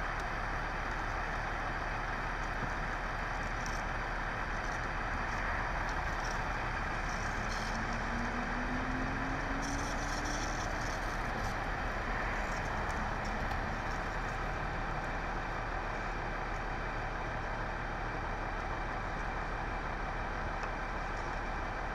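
Steady drone of vehicle engines and traffic, with one engine briefly rising in pitch about halfway through.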